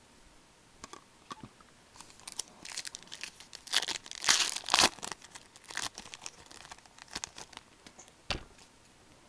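A hockey card pack's wrapper being torn open and crinkled, in a run of crackly bursts loudest about halfway through, then a few light clicks.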